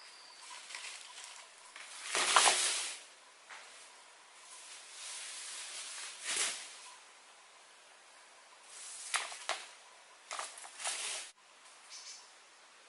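A series of brief scraping and rustling noises from hand work, the loudest about two seconds in and a quicker cluster of sharper ones near the end that stops abruptly.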